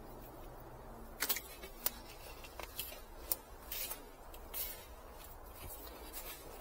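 Gloved hands working potting mix around a repotted kumquat in a plastic nursery pot: scattered light rustles and short sharp clicks, the two loudest a little over a second in and just under two seconds in.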